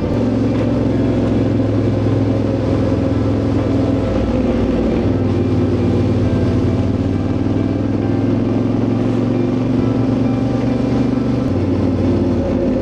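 Yamaha Ténéré 700's parallel-twin engine running at a steady pace while riding, with a rush of wind and road noise.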